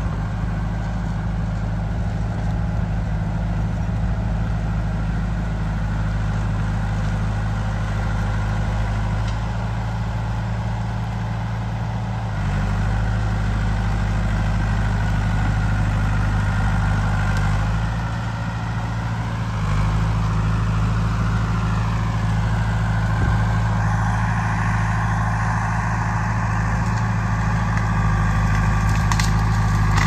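John Deere 450B crawler bulldozer's engine running steadily while working, its note shifting a little under changing load about a third of the way in and again past the middle. A few sharp cracks near the end.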